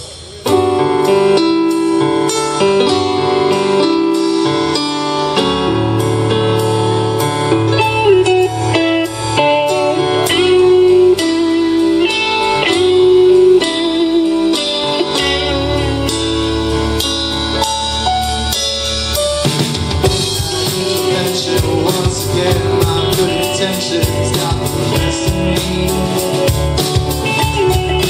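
Live rock band playing: electric guitar, electric bass, drum kit and keyboard. The song starts abruptly about half a second in, and the band grows fuller and heavier about two-thirds of the way through.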